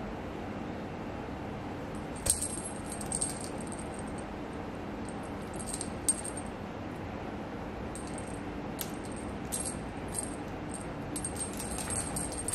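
A small jingle bell on a playing cat, tinkling in short, irregular bursts as the cats move: a few jingles about two seconds in, a sharp one around six seconds, and a busier run over the last few seconds.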